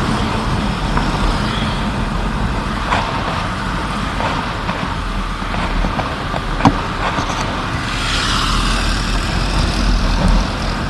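Motorbike being ridden in road traffic: steady engine hum under road and wind noise, with one sharp click about two-thirds of the way through and a swell of hiss near the end.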